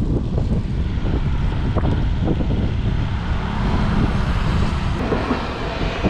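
Wind buffeting the microphone: a loud, steady, fluttering low rumble with no clear tone.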